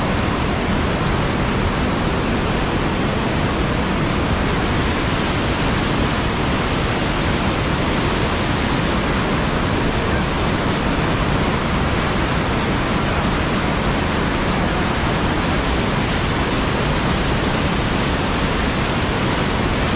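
Whitewater rapid on a steep mountain river: a steady, dense rush of water pouring over rocks and a drop, with no let-up.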